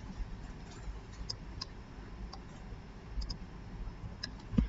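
Several sharp clicks of a computer mouse and keyboard at irregular intervals over a low steady hum, with a heavier knock near the end.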